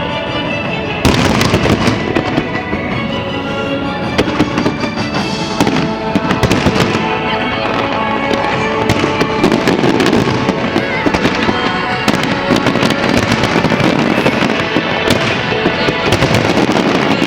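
Fireworks display bursting with many rapid cracks and bangs, over loud music. The bangs get denser about a second in.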